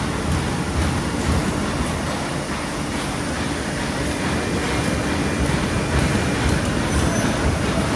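Aster 180 book-sewing machine running at speed: a steady mechanical clatter with faint repeated knocks as signatures are fed in and thread-sewn.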